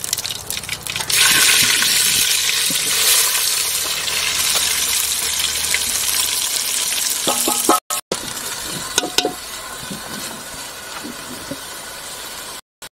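Hot oil tempering (vaghar) for khichdi sizzling in a cooking pot: a loud sizzle starts suddenly about a second in as something goes into the hot oil, and carries on, quieter after about eight seconds, with a few light knocks.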